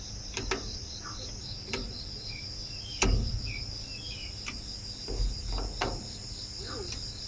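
Insects chirping steadily in a high, pulsing trill, with several sharp clicks and knocks over it; the loudest knock comes about three seconds in.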